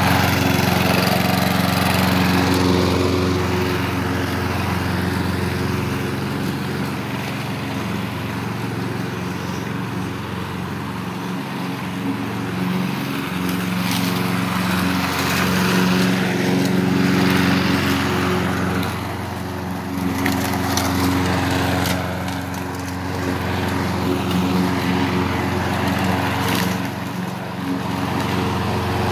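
2015 Lawn-Boy walk-behind gas lawn mower running steadily while cutting, its engine note sagging a little now and then as the load changes, with a few brief sharp ticks.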